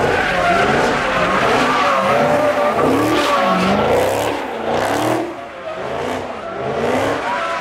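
Dodge Charger SRT Hellcat's supercharged V8 revving up and down over and over as it spins donuts, its rear tyres squealing and skidding on the pavement. The engine note dips briefly about five seconds in, then climbs again.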